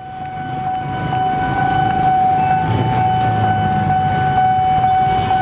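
Train air horn held in one long steady note, a second, slightly higher note joining about a second and a half in and dropping out near the end, over the rumble of a moving train. The sound grows louder over the first two seconds. The horn is said to be a fouled K5LA that sounds like a Wabco AA-2 multiple-unit horn.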